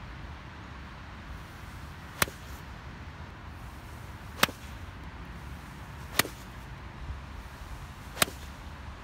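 Golf iron striking range balls off a hitting mat: four sharp cracks about two seconds apart, over a steady background noise.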